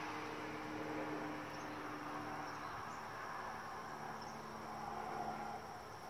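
A steady, high-pitched insect trill, with a faint low hum and a noisy background underneath.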